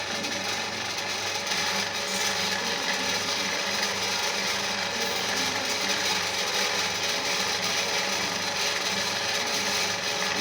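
An old Dickson ice-shaving machine running steadily: a motor hum under a continuous mechanical grinding rasp.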